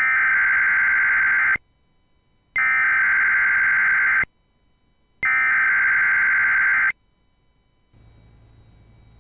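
Emergency Alert System SAME header: three bursts of digital data tones, each about a second and a half long with a second of silence between them. A faint hum comes in near the end.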